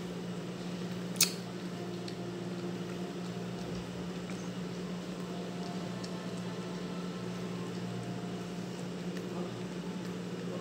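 Steady low mechanical hum of room tone, with one sharp click about a second in and a few faint ticks.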